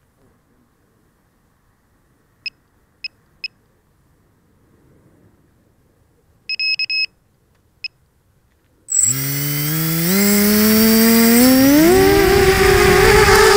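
Brushless motors of a ZMR250 FPV racing quadcopter. First come a few short, high electronic beeps from the quad, then about nine seconds in the motors start and spin up with a whine that rises in steps as it lifts off. Near the end the pitch wavers, in keeping with the heavy oscillations of its badly tuned PID settings.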